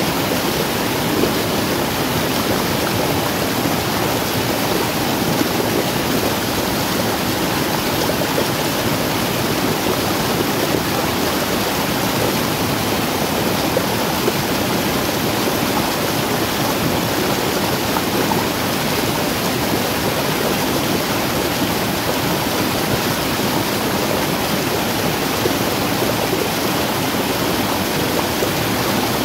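Muddy runoff from heavy rain rushing over a small eroded waterfall and down a gully: a steady rush of water.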